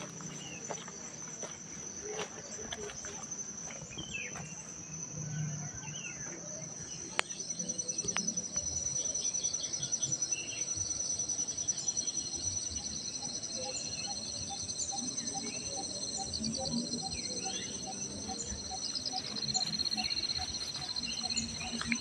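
Insects shrilling in a steady high continuous chorus, with scattered short bird chirps. After a click about seven seconds in, the insect chorus grows fuller and a short call starts repeating at an even pace.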